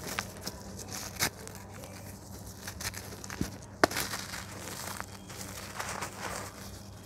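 Dry red clay dirt crumbling and crushing between bare hands, a gritty crunching with loose grit and dust falling into a basin of powder. Two sharp cracks stand out, about a second in and near four seconds, the second the loudest.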